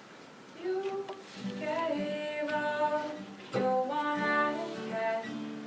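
Acoustic guitar notes with a couple of strums, and women's voices singing held notes.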